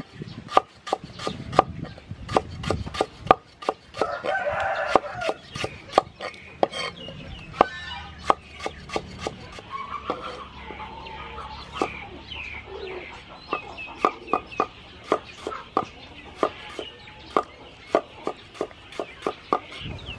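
Cleaver slicing lemongrass stalks on a wooden chopping board: a steady run of sharp chops, about two to three a second. A rooster crows about four seconds in, and chickens cluck briefly later on.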